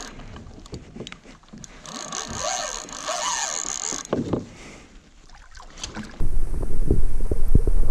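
Kayaks on a river: water movement and knocks against the hulls. From about six seconds in a much louder low rumble with knocks sits close to the microphone.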